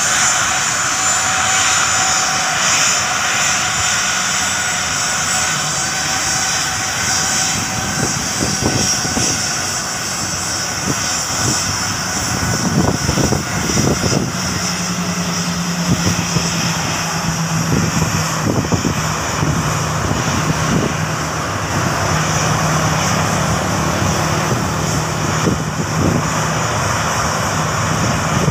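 Turbofan engines of a Lion Air Boeing 737 running at taxi power as the jet turns on the runway: a steady jet whine with a high whistle over a broad rush of noise. A steady low hum joins about halfway through.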